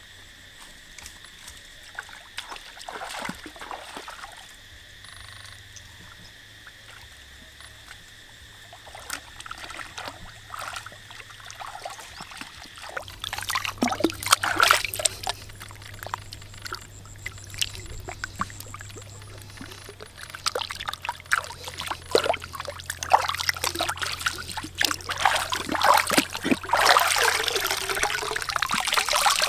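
Water splashing and dribbling as hands rinse and handle a large fish in shallow pond water. The sound is sparse at first, then turns into busy, irregular splashing from about halfway through.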